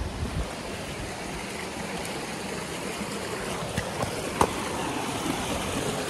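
Steady rush of flowing water over rocks, with a faint tap about four and a half seconds in.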